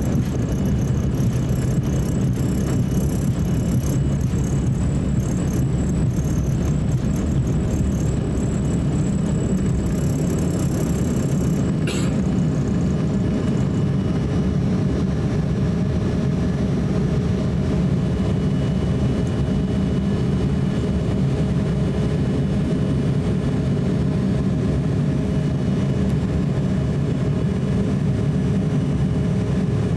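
Embraer E170 cabin during takeoff: the jet's GE CF34-8E turbofans running steadily at high thrust, with runway rumble and rattling that fades away as the aircraft lifts off into the climb. A single sharp clunk about twelve seconds in.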